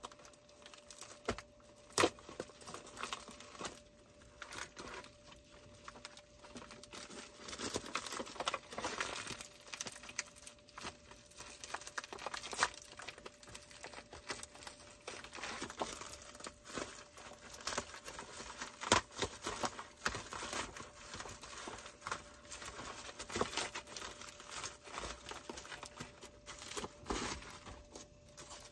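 A small package being opened by hand: irregular crinkling and tearing of its wrapping, with many small clicks and a few sharper snaps.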